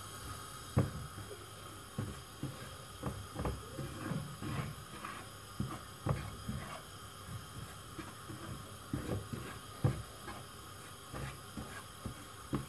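Silicone spatula stirring and scraping a dry mix of fine semolina, milk powder and coconut as it toasts in a nonstick frying pan: soft, irregular scrapes and taps against the pan.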